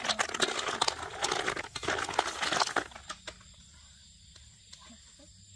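Whole snails in their shells clattering and clinking against a metal pan as they are stirred with a spatula over a fire, a dense run of small clicks. It stops abruptly about three seconds in, leaving only a faint background.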